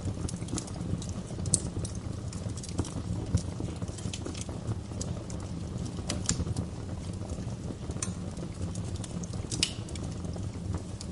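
Wood fire in a fireplace crackling and popping irregularly over a steady low rumble of the flames.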